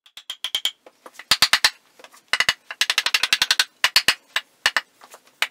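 Mallet striking the wooden leg frame of an antique workbench to knock its joints apart, in quick runs of sharp blows with short pauses between the runs.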